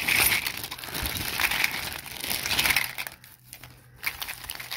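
Plastic bags crinkling and rustling as they are handled and pulled open, loud for about three seconds. Then it quiets to a few light clicks of plastic coin capsules being moved by hand.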